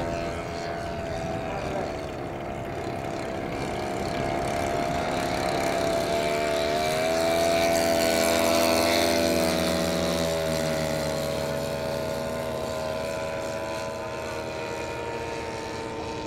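Propeller engines of several large-scale radio-controlled WW1 biplane and triplane models droning in flight. One grows louder about eight seconds in and drops in pitch as it passes by, while another keeps a steady note.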